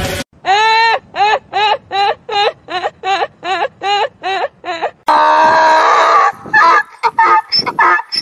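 A woman's high-pitched laugh, about a dozen short 'ha's at two to three a second, then from about five seconds in a donkey braying, its hee-haw going back and forth.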